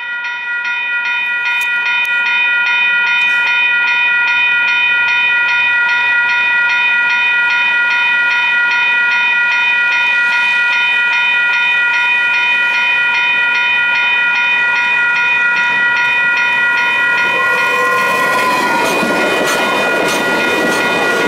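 A grade-crossing warning bell rings steadily and rapidly. From about three-quarters of the way in, a Talgo passenger train's rumble and wheel noise rise over it as the train reaches the crossing and passes close by.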